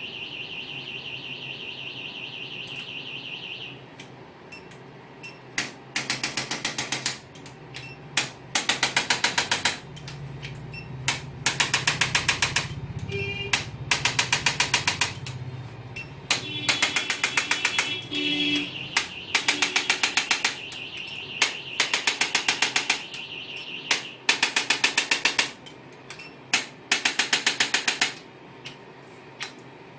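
Electric chiropractic adjusting gun firing in rapid bursts of clicks, each about a second long, about a dozen bursts with short pauses between, as it is worked along the spine from the sacrum to the lower back.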